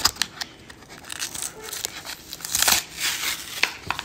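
Foil wrapper of a Yu-Gi-Oh Lightning Overdrive booster pack crinkling in irregular bursts as it is handled and torn open, loudest about two-thirds of the way in.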